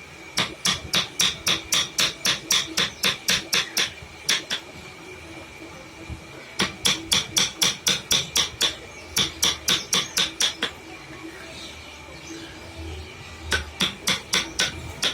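Hammer tapping in quick, even runs of about four blows a second, stopping and starting several times.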